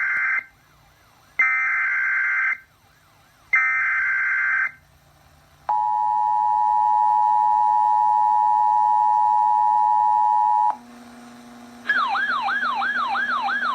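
Emergency Alert System severe thunderstorm warning audio. It opens with the tail of one SAME digital header burst and two more raspy data bursts of about a second each, two seconds apart. Next the two-tone attention signal holds steady for about five seconds. After a short, quieter low tone, a warbling siren-like alert tone starts near the end, rising and falling about twice a second.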